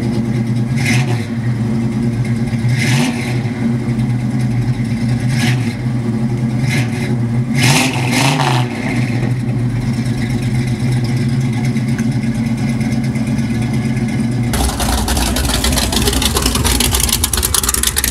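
Late-1960s Ford Mustang's V8 idling steadily, with several short louder bursts, the biggest about eight seconds in. About 14.5 seconds in the sound switches to a hot-rod pickup's engine idling, lower and rougher.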